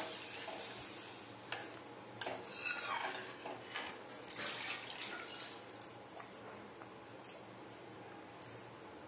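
Steel ladle stirring a thin besan-and-buttermilk kadhi mixture in a steel kadai, scraping and clinking against the pan. The clinks are busiest in the first half and thin out to a few single taps later.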